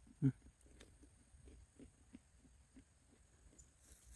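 A person chewing a bite of fresh persimmon close to the microphone: a soft thump about a quarter second in, then faint low chewing about three times a second.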